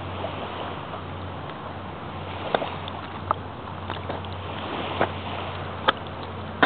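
Bare feet stepping through wet mud: several short, sharp squelches and smacks, roughly a second apart, starting a couple of seconds in, over a steady background hiss.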